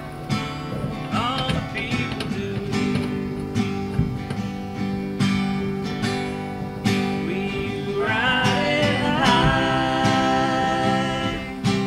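Background country song: acoustic guitar strumming with a singing voice coming in about eight seconds in.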